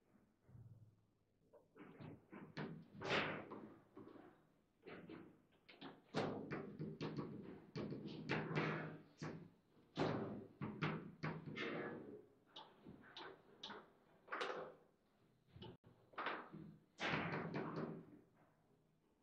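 Table football (foosball) in play: an irregular run of sharp knocks and clacks as the ball is struck by the rod figures and bounces off the table walls. Several louder cracks stand out among them, about three seconds in, near the middle and toward the end.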